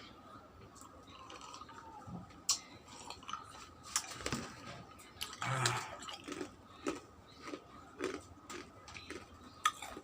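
Close-miked chewing and eating of puri with chicken curry: a string of short wet mouth clicks and smacks, with a longer noisy stretch just past the middle.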